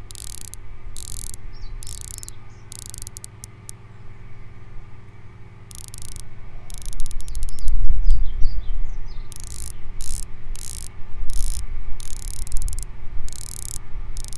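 Unidirectional 120-click ceramic bezel of a Christopher Ward C60 Trident Pro 600 dive watch being turned, ratcheting in short runs of rapid, subdued clicks about once a second, with a few single clicks in a sparser stretch near the middle. A low rumble sits underneath, swelling about halfway through.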